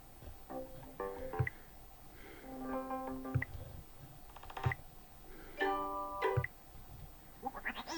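Sony Xperia 1 V ringtones previewed one after another through the phone's speaker. Four short melodic snippets, each about a second long, are cut off abruptly as the next tone is picked.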